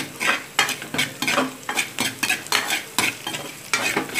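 Spatula scraping and stirring onions, curry leaves and dried red chillies as they fry in oil in a kadai, in quick repeated strokes about three a second over a light sizzle.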